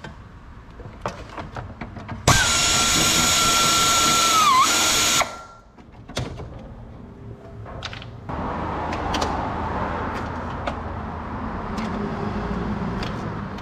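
A small electric power tool's motor whines steadily for about three seconds, its pitch dipping briefly under load before it stops. Tool clicks are heard around it, and a steady low rumbling noise starts about eight seconds in.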